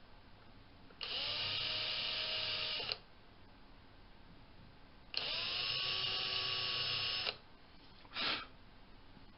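Cordless drill running twice for about two seconds each, its motor pitch rising as it spins up, as a thin bit drills into a small block of Douglas fir. A brief hiss follows near the end.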